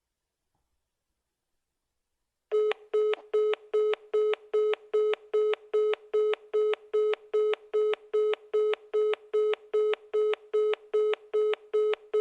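iPhone call beep tone: about two and a half seconds of silence, then a rapid string of short identical beeps, about three a second, each one pitch with bright overtones.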